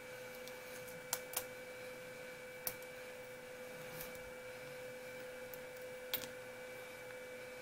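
A handful of sharp little clicks and taps as small screws and a steel Allen wrench are handled against the plastic chassis brace and wheelie bar, two of them close together about a second in, over a steady faint hum.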